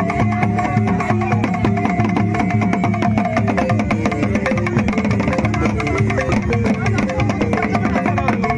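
Live African drumming: a group playing djembe-style and barrel drums with hands and sticks, in a fast, dense, unbroken rhythm over a stepping melody line.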